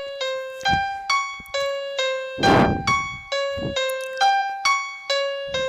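Rap beat intro: a piano-like keyboard plays a melody of short repeated notes, about two a second, with a few bass-drum hits and a louder drum crack about two and a half seconds in.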